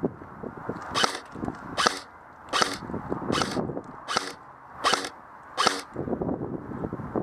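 Airsoft gun firing seven single shots, about one every 0.8 seconds, each a short sharp crack.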